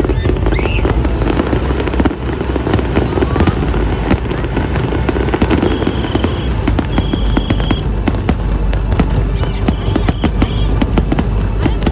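Fireworks going off in a dense, continuous run of crackles and pops over a steady low rumble.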